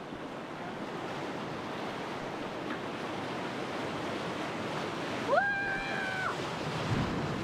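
Whitewater of a river rapid rushing around an inflatable raft. About five seconds in a short, high-pitched cry is heard for about a second, and near the end there is a low thud as the raft meets a wave.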